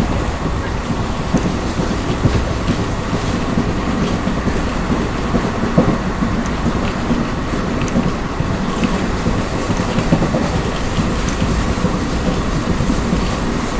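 ICF passenger coaches running along the track: a steady rumble with scattered clicks of the wheels over rail joints, and one louder knock about six seconds in.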